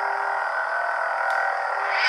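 Lightsaber hum from the hilt's Crystal Focus sound board through its speaker: a steady electronic drone of several held tones while the blade is lit.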